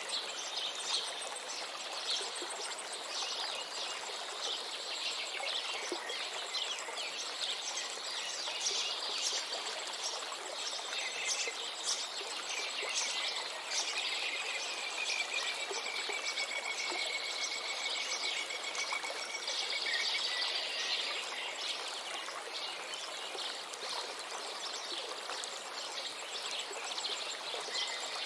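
A river flowing steadily, with many small birds chirping and calling over the water. About halfway through, a long, even note is held for several seconds.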